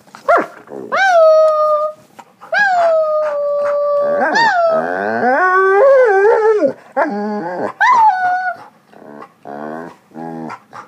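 Dog howling in a series of drawn-out calls, each dropping sharply from a high start and then holding a steady note. The longest is about a second and a half. A lower, wavering call overlaps them around the middle.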